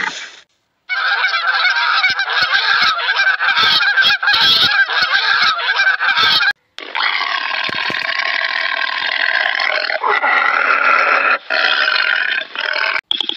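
A flock of Egyptian geese honking and cackling together, many harsh calls overlapping. After a brief break about halfway, loud rasping calling carries on.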